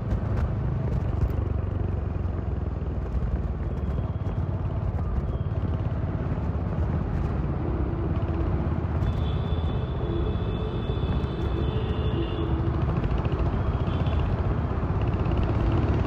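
Royal Enfield Hunter 350's single-cylinder engine and exhaust running steadily with a low rumble, ridden through city traffic. Near the middle a thin high-pitched tone sounds for a few seconds.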